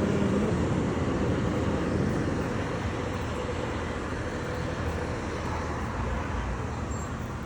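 Motor vehicle engine and road noise running steadily, slowly fading.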